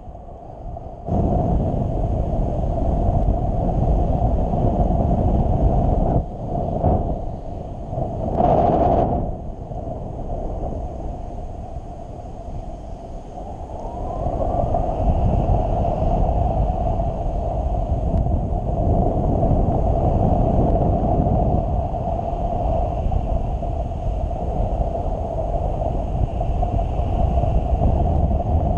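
Wind from a paraglider's flight buffeting the camera microphone: a loud, gusty rumble that jumps up about a second in, with a steady hum running through it.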